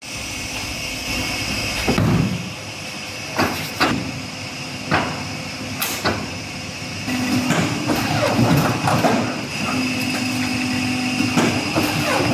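A stack of paperboard knocked and slid across the steel table of a paper guillotine cutter: a few separate knocks first, then a denser run of knocking and scraping, over a steady machine hum.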